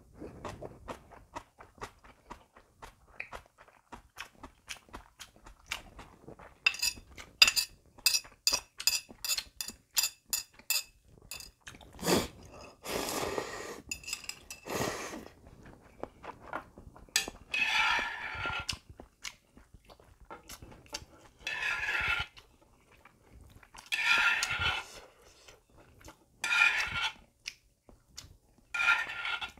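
Close-up eating sounds: crunchy chewing of kimchi, then a quick run of metal chopsticks clinking against a small ceramic dish, a sip of broth from the dish, and about five slurps of instant ramyeon noodles a few seconds apart.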